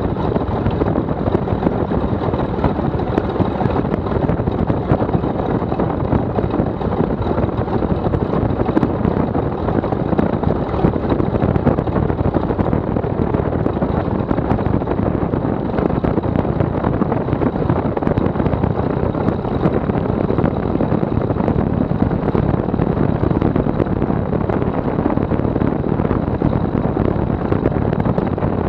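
Maule M7-260 amphibian's engine and propeller running steadily as the floatplane taxis on the water, mixed with the rush of water and spray along the float.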